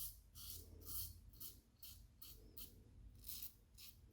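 Short, faint scratchy strokes of a double-edge safety razor cutting stubble, about two strokes a second.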